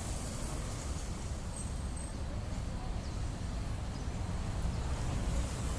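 Steady low rumble of road traffic at rush hour, heard as an even background noise with no single vehicle standing out.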